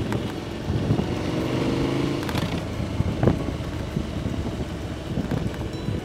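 KTM 1290's V-twin engine running as the motorcycle rides along, its note rising for a stretch about a second in. A few sharp knocks are heard over it.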